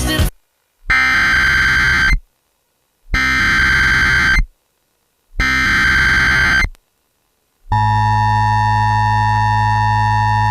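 Emergency Alert System SAME header data: three bursts of warbling digital tones, each a little over a second long with about a second between them. About three-quarters of the way through, the steady, buzzy EAS attention tone starts, which announces the warning that follows.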